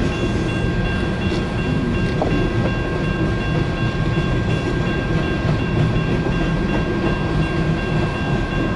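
Cars of a long Canadian National mixed freight train rolling steadily past the crossing, a continuous low rumble with a few faint steady high tones above it.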